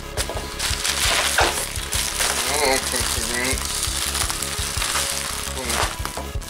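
Plastic bubble wrap crinkling and rustling as hands handle and pull at it.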